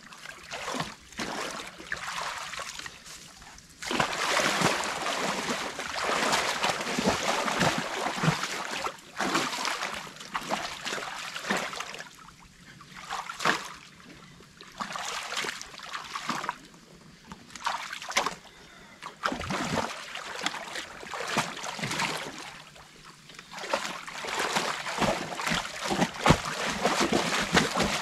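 Water splashing and rushing in irregular bursts as sticks and mud are pulled from a beaver dam, opening it up so the pond drains.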